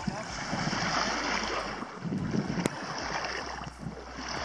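Wind rumbling on the microphone over a steady rush of small waves lapping at the sandy shore, with one sharp click about two and a half seconds in.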